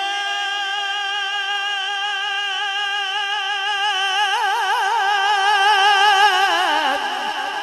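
A male Quran reciter holds one long melodic note in tilawat-style recitation. The note is steady at first, wavers in an ornament from about four seconds in, and slides down in pitch near the end.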